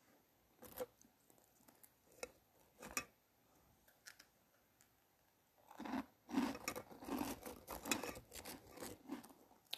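Close-up chewing of crunchy food: a few sharp crunches, then a denser stretch of crunching and clicking over the last few seconds.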